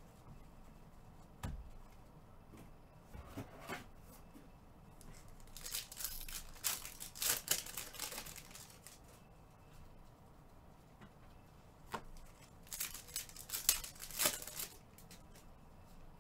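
Trading card pack wrappers being torn open and crinkled, in two bouts about six and thirteen seconds in, with a single knock about a second and a half in.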